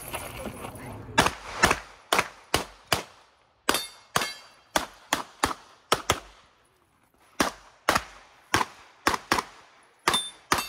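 Pistol fired in rapid strings: about twenty sharp shots in quick pairs and runs, with short pauses between groups of shots.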